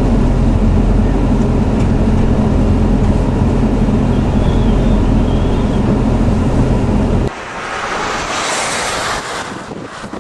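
A vehicle's engine and road noise drone steadily, then cut off abruptly about seven seconds in to a hissing rush of high wind on the microphone.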